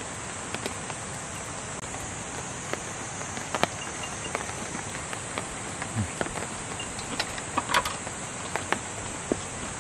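Steady high chirring of night insects, crickets among them, over the swirl of water turning in a tabletop flowing-somen (nagashi-somen) spinner. Scattered light clicks and taps of chopsticks and dishes.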